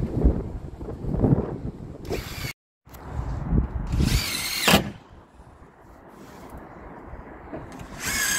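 Cordless drill-driver driving screws through plywood sheeting on a house wall: short runs of the motor's whine at about two seconds, again around four to five seconds, and near the end. There is a brief gap of silence just after two and a half seconds.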